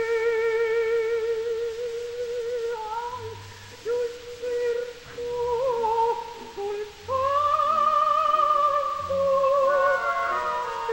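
Operatic soprano singing long held notes with wide vibrato over a sparse orchestral accompaniment of short low chords, recorded live in a theatre. The voice holds one note, wavers through shorter notes, then leaps to a higher sustained note about seven seconds in.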